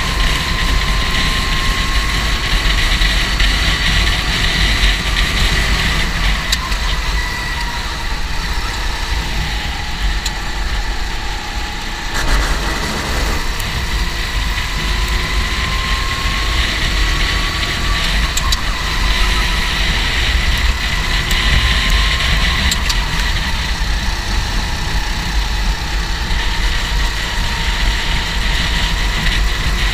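Go-kart engine running hard, its pitch slowly rising and falling again several times as it speeds up and slows, over a steady low rumble.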